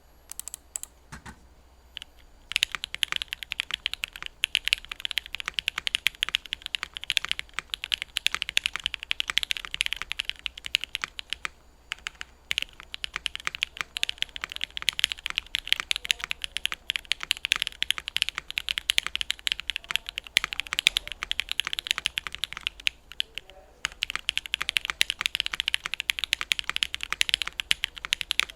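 Typing on a Shiori mechanical keyboard fitted with linear switches made from Jwick housings and Kailh Red stems: a few scattered keystrokes, then fast continuous typing with two short pauses, about halfway through and near the end.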